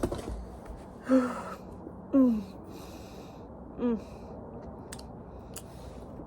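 A woman sighing and making short wordless vocal sounds, three times about a second apart, each falling in pitch. There is a click at the start and a faint steady hum underneath.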